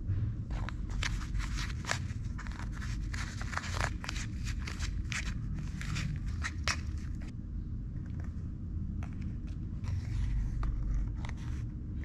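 Small plastic spoon stirring and scraping a moist candy-powder mix against a plastic tray: a quick run of scrapes and clicks that thins out about seven seconds in, over a steady low hum.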